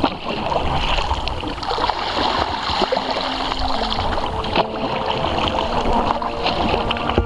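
Kayak paddling: the paddle blades dipping and splashing on alternate sides, with water trickling and lapping along the hull.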